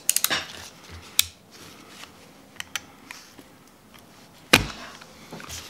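Clicks of a utility knife's blade being pushed out, then small ticks and scraping as the blade shaves at the plastic tab on a car battery's base, with one sharp knock about four and a half seconds in.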